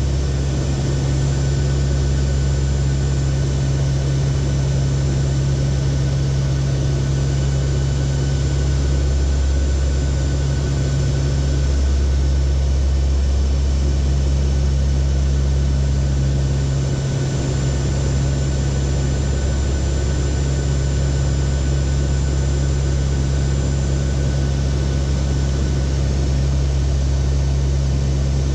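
Steady drone of the four turboprop engines of a Lockheed WP-3D Orion hurricane hunter, heard inside the cockpit in cruise: a deep, constant hum with a rushing noise over it.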